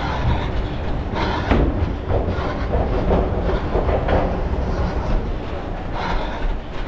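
A runner moving at speed, heard through a head-mounted camera's microphone: irregular footfalls and thuds over a steady low rumble of movement and handling noise.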